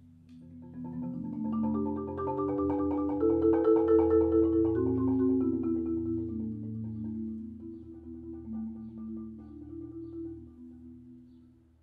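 Concert marimba played with four mallets: rapid repeated strokes roll chords that swell to a loud peak a few seconds in, then fade away almost to silence near the end.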